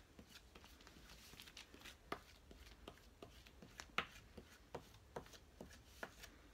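Faint, irregular scrapes and light taps of a spoon smearing peanut butter across a plastic zipper bag on a table.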